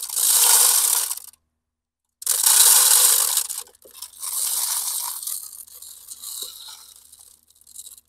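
Bird seed being poured into a bird feeder's seed hopper, a dry rushing rattle in three pours: one at the start, a louder one about two seconds in, and a longer one that tapers off near the end.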